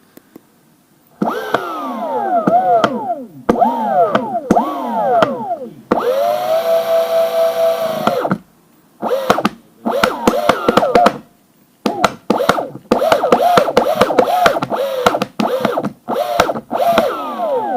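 Koowheel electric skateboard's hub motors whining in repeated bursts, the pitch sliding down after each burst, with one steady run of about two seconds near the middle. Sharp clicks run through it: the clicking noise the board is making.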